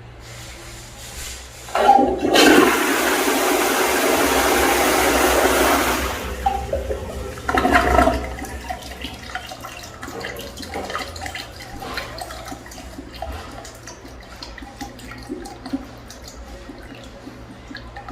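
Toilet flushed with a wall-mounted flush valve: a loud rush of water starts about two seconds in and runs for about four seconds. A short second surge comes near eight seconds, then quieter gurgling and trickling as the bowl settles.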